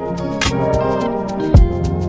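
Instrumental background music: held tones over a beat, with a drum hit about halfway through and a deep kick near the end.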